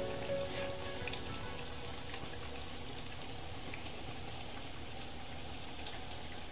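Pork belly simmering in vinegar in a clay palayok: a steady bubbling hiss with faint scattered pops.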